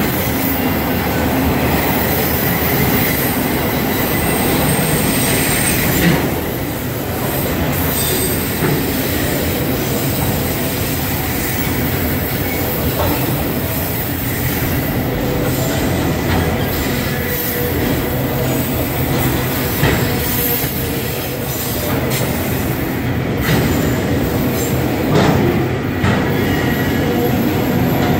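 Freight train's flatcars and autorack cars rolling past close by: a steady rumble of steel wheels on rail with a thin, high wheel squeal and occasional clicks as wheels cross rail joints.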